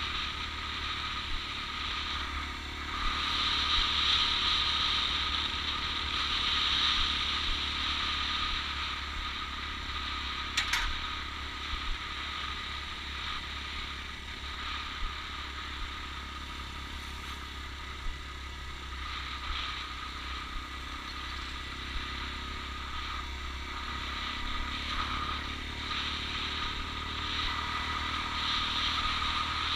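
Motorcycle engine running steadily while riding at low speed, heard from a camera on the bike, with steady hiss of wind and road noise. A single sharp click about a third of the way in.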